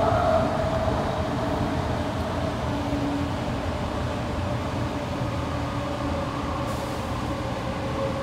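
AirTrain JFK car running along its elevated guideway, heard from inside the cabin. The running gear gives a steady rumble under a motor whine that slowly falls in pitch, with the sound easing slightly after the first second.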